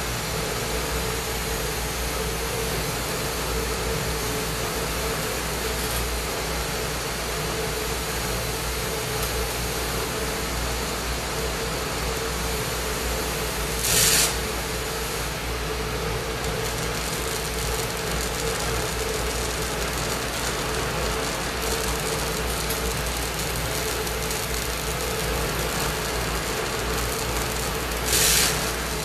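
Glassblowing bench torch running with a steady flame rush, heating borosilicate glass to pop the bowl hole of a pipe. A steady tone runs underneath, and two brief, louder hisses come about halfway through and near the end.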